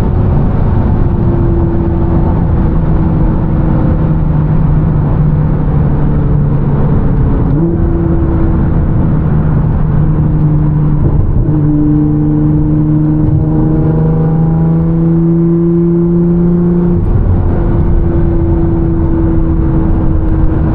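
Full-bolt-on Nissan R35 GT-R's twin-turbo V6, heard from inside the cabin while cruising: a loud, steady engine and exhaust drone over road noise. Its pitch steps up once about seven or eight seconds in, dips briefly, then climbs a little near the middle.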